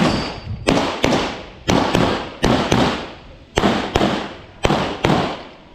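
A string of about ten handgun shots fired in quick succession, several as fast pairs, each crack trailing off in a short echo across the range.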